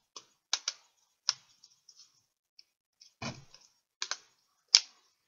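Plastic rim of a Samsung Galaxy Tab 3 8.0 tablet being snapped back on: a string of sharp plastic clicks as its clips seat, with a duller knock about three seconds in and the loudest click near the end.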